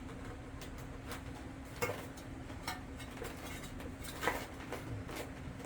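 Scattered small clicks and light clinks of hard parts being handled, the loudest a little before two seconds in and just past four seconds, over a faint steady hum.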